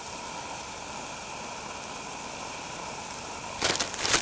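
Steady hiss of a small camp stove with eggs cooking in a skillet on it. A brief, loud burst of rustling handling noise comes near the end.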